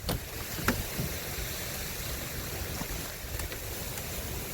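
Strong wind buffeting the microphone: a steady rushing noise with a gusting low rumble, and a few faint knocks in the first second.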